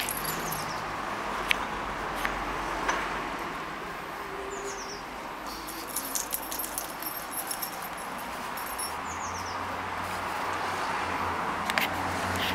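Two dogs play-wrestling on a cushioned dog bed, a large dog and a black puppy, making soft scuffles and scattered clicks over steady outdoor background noise. A few short, falling high bird chirps come through, about three times.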